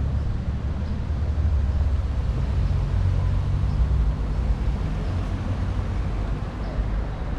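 Outdoor street ambience dominated by a steady low rumble, with no clear single event standing out.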